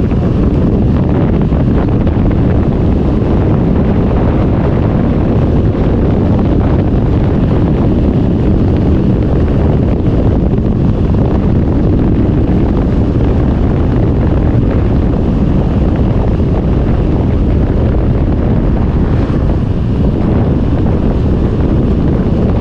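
Loud, steady wind rush buffeting the microphone of a camera riding along on a mountain bike, heaviest in the low end.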